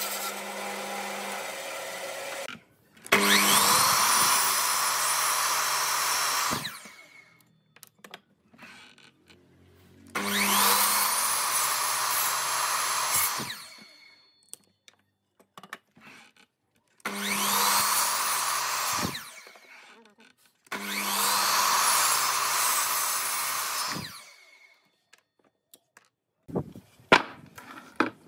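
A band saw running, then a miter saw started four times, each time spinning up with a rising whine and cutting through wood for about three seconds before stopping. Near the end, wooden blocks knock sharply as they are set down.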